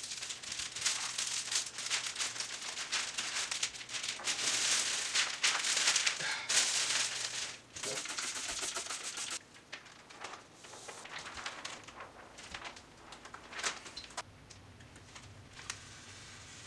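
A large sheet of mirror window film crinkling and crackling as it is handled. It is dense and loud for about the first nine seconds, then turns to fainter, scattered crackles.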